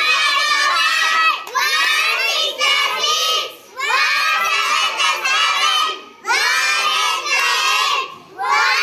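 A group of young children chanting a multiplication table loudly in unison. Each line is a phrase of about two seconds, with a short break between lines.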